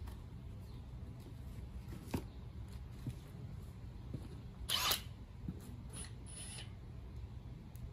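Short scraping scuffs of a person's boots on a concrete patio, the loudest just before the middle and a fainter one about a second later, over a low steady outdoor rumble, with one sharp click about two seconds in.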